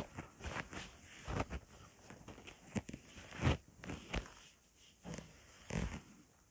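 Cloth wiping marker ink off a whiteboard: a series of quick, irregular rubbing swishes, one with each pass of the hand, stopping near the end.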